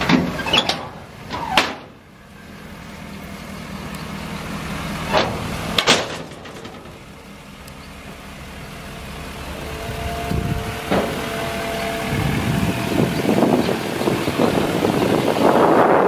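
Flatbed truck's hydraulic liftgate folding up: a steady pump hum with sharp metal clanks, the hum stopping about two seconds in. Two more knocks follow a few seconds later, and wind rushes across the microphone near the end.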